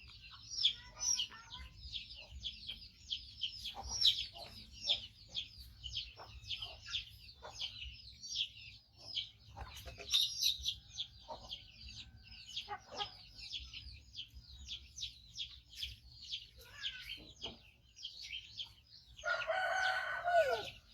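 Baby monkey squealing over and over, short high-pitched calls several a second with no letup, then one louder, longer call near the end.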